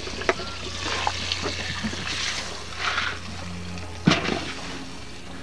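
Kitchen work sounds: liquid being poured or splashed in a short run or two, with clinks of utensils and dishes and one sharp knock about four seconds in, over a steady low hum.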